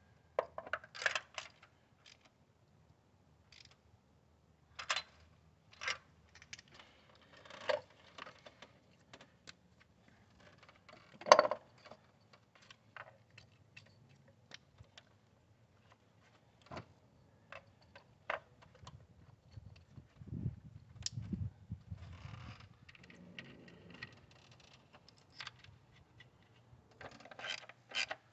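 Irregular metallic clicks and clinks of a ratchet, extension and socket being worked on the spark plugs and ignition coils of a V6 engine, with one louder knock about eleven seconds in and some low rustling of handling around twenty seconds in.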